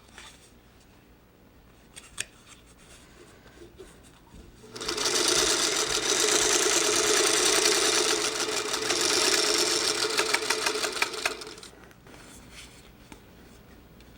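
Sewing machine stitching a seam in a steady run of about seven seconds, starting about five seconds in and stopping near the end; before it, a single click.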